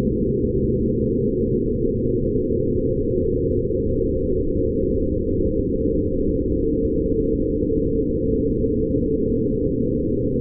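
Sonified photographs of light: images run through sound-editing software to make a meditative ambient drone. It is a dense, steady low drone with a few faint held tones in it and nothing above a low pitch.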